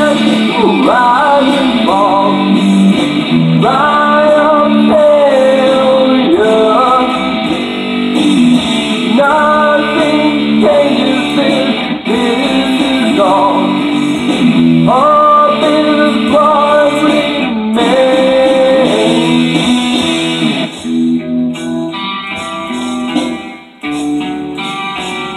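Hard rock electric guitar instrumental passage: a lead line with bending, sliding notes over sustained chords. It gives way about twenty seconds in to quieter, choppier strummed chords.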